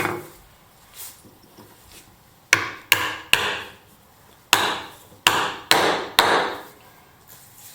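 Mallet blows driving a pole-lathe mandrel's round tenon into the hole in a greenwood bowl blank: a string of sharp wooden knocks, a couple of lighter taps first, then seven harder strikes in two quick runs.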